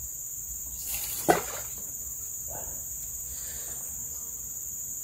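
Steady high-pitched chorus of forest insects. A brief swish ending in a sharp click cuts in about a second in.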